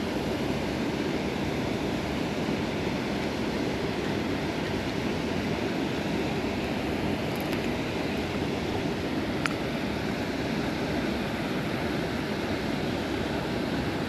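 Steady rush of water pouring over a lake spillway, with one faint click about nine and a half seconds in.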